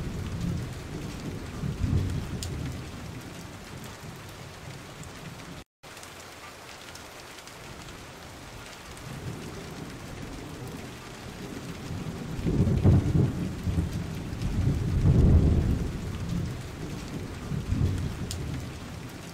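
Steady rain with several low rumbles of thunder rolling in and fading, the loudest two about two-thirds of the way through. The sound cuts out completely for a moment about a third of the way in.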